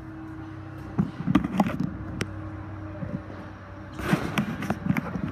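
Construction-site noise inside an unfinished building: a steady low machine hum, with two bursts of sharp knocking and clattering, one about a second in and another near four seconds.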